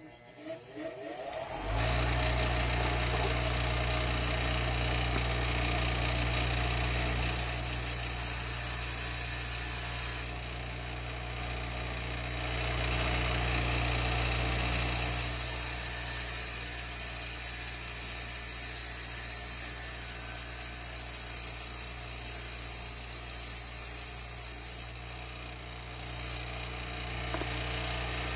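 A 6-inch bench grinder is switched on and spins up over the first two seconds, then runs with a steady hum. A stainless steel antenna whip is ground down against the wheel, giving a harsh grinding hiss for about three seconds and then again for about ten seconds.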